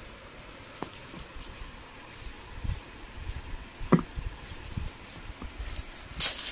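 Handling noise from gold-finish costume jewelry and its red velvet-lined tray: sparse light clicks and soft knocks as an earring is picked up and the tray is moved, with one sharper click about four seconds in.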